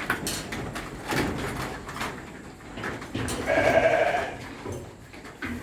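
A sheep bleats once, a single call about a second long, a little past the middle. Lighter knocks and shuffling sounds come before and after it.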